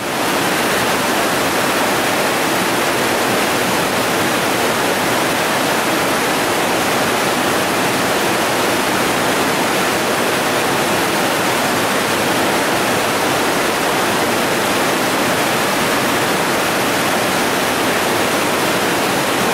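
Loud, steady rush of big whitewater river rapids, an even wash of water noise with no breaks.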